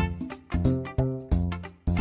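Music: plucked guitar and bass notes, each struck and dying away, roughly two notes a second.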